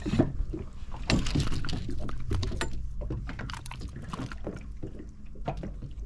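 Water splashing and sloshing at the side of an inflatable boat as a fish is lifted out of the sea on the line, with scattered knocks and rustles, the loudest about a second in. A faint low hum runs underneath.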